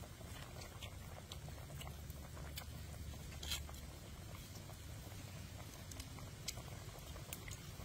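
Pot of pork legs braising in chili broth at a simmer: bubbling with irregular soft pops and crackles over a low steady rumble, one louder pop about three and a half seconds in.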